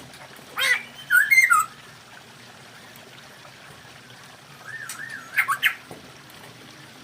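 Poksay hongkong laughingthrush calling: two bursts of loud, rapidly gliding squawky whistled notes, about a second in and again near five and a half seconds, with a softer wavering whistle just before the second burst.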